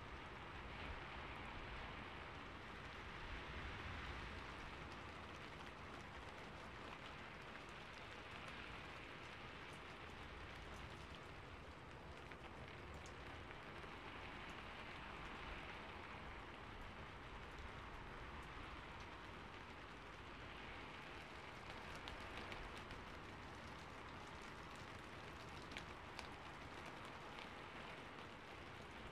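Steady rain, a soft even hiss that swells and eases every few seconds.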